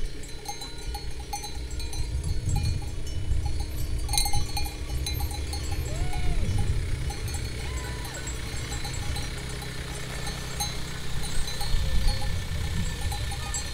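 Livestock bells clinking irregularly, with a short animal call about six seconds in, over a low rumble.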